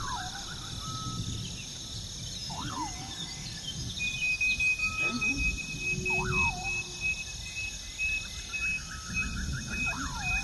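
Forest ambience: steady insect chirring with a rising-and-falling call repeating about every three to four seconds, runs of rapid trilled notes near the start and end, and a steady high insect tone joining about four seconds in, over a low rumble.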